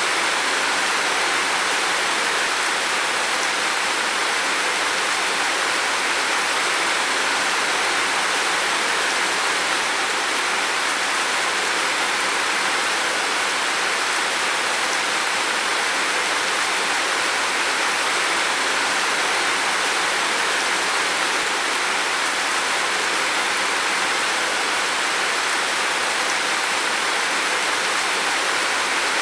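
Heavy rain falling steadily on a roof, a dense, even hiss with no single drops or gusts standing out.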